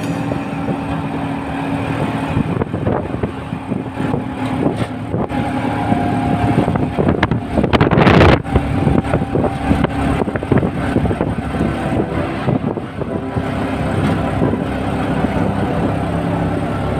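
Auto-rickshaw engine running under way, with road and wind noise rushing in at the open side. There is a brief louder rush about eight seconds in.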